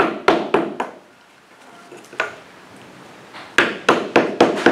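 Hammer tapping a wooden plank into place with sharp knocks: a quick run of four at the start, a single one about two seconds in, and a quick run of five near the end.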